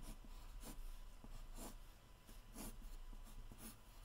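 Pencil sketching on paper: faint scratchy strokes, the stronger ones coming about once a second.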